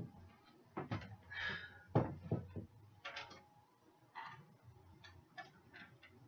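Scattered light knocks and clicks of kitchenware being handled as food is taken up and plated, with a short scraping noise about a second and a half in and another near the middle.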